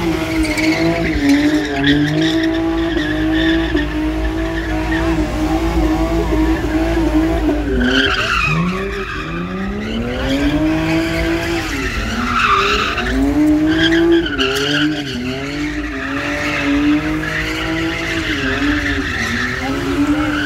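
Car engine held at high revs, its pitch wavering up and down, with tyres squealing as the car spins donuts in a burnout. The engine note drops sharply and climbs back up about eight seconds in.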